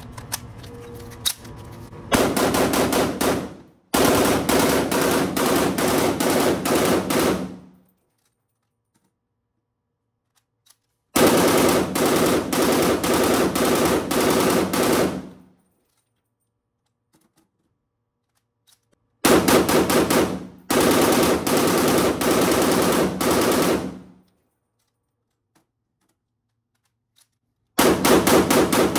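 POF CW39 rifle firing on full auto: about six long bursts of rapid, evenly spaced shots, each lasting one to four seconds, with pauses of a few seconds between them.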